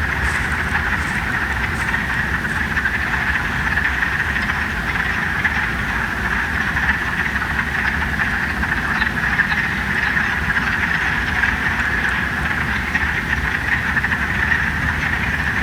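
A propeller or jet airplane drones overhead, with a low steady rumble. Over it, a loud, steady, high-pitched chorus of calling animals carries on at dusk.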